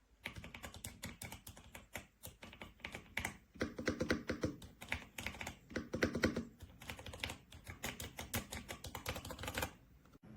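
Fast, continuous typing on a YUNZII B75 PRO 75% gasket-mounted mechanical keyboard, keystrokes clattering in quick succession. Two stretches around four and six seconds in are louder and deeper. The typing stops about a second before the end.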